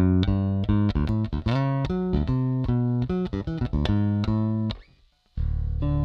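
Electric bass with a single-coil pickup, played fingerstyle: a walking bass line of plucked notes. It stops about three-quarters of the way in, and after a short silence the bass comes back in with a fingerpicked chord melody, several notes ringing together.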